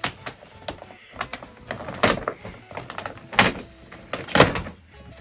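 A Christmas present being unwrapped: packaging handled and torn open by hand, in a series of short, sharp noises. The loudest come about two, three and a half and four and a half seconds in.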